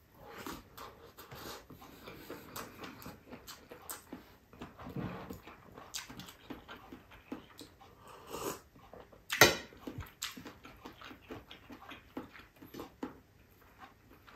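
Close-miked mouth sounds of a person eating rice and adobo octopus by hand: wet chewing and lip smacks in quick short clicks, and a sip from a glass. One sharp clack about nine and a half seconds in is the loudest sound.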